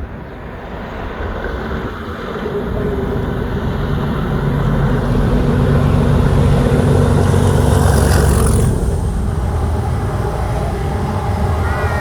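Class 37 diesel locomotive's English Electric V12 engine running under power as it approaches hauling a train, building to its loudest about eight seconds in as it passes with a brief rush of higher noise, then easing off as it goes by.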